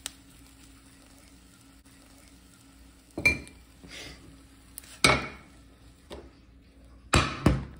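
Frying pan and spatula clattering as an omelette is turned out of the pan: a few sharp knocks and scrapes starting about three seconds in, ending with a quick double knock.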